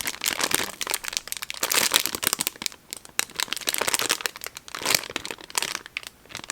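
Plastic packaging crinkling and rustling in irregular crackles as squishies in their wrappers are handled.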